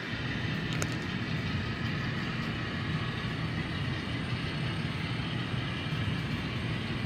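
Model trains running on a layout: a steady rumble of wheels on track with motor hum, and a single small click about a second in.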